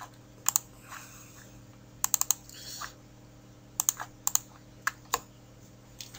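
Computer keyboard clicks: single key presses and quick runs of two to four, irregularly spaced.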